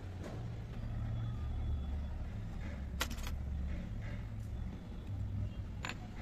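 A small white bowl set down on a miniature wooden wall shelf, a light click near the end. There is a sharper click about halfway through, and a steady low rumble underneath.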